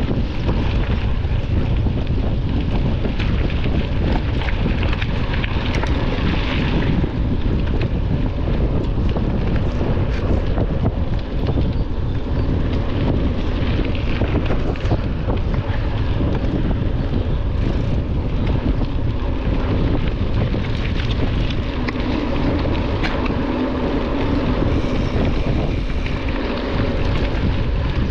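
Wind buffeting the microphone of a camera on a moving mountain bike, with a steady low rumble and many small clicks and rattles from the bike on rough ground.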